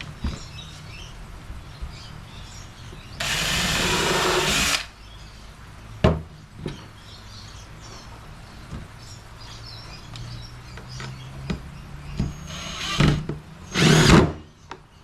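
Power drill running into pallet wood in bursts: one steady burst of about a second and a half a few seconds in, then two shorter bursts near the end, with a few sharp knocks of wood between them.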